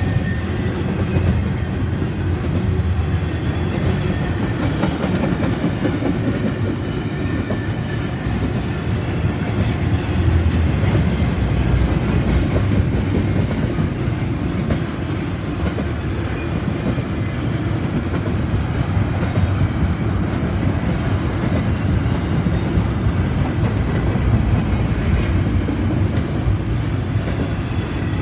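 Double-stack container well cars of a Canadian Pacific intermodal freight train rolling past, a steady rumble of steel wheels on the rails.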